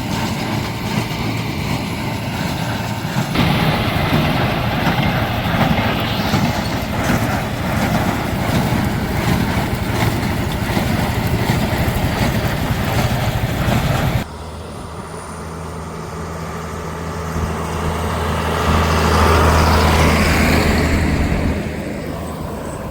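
Tractor and small square baler running under load, a dense mechanical clatter. About two-thirds of the way through it changes abruptly to a tractor engine running steadily, which swells louder for a couple of seconds with a rising whine near the end.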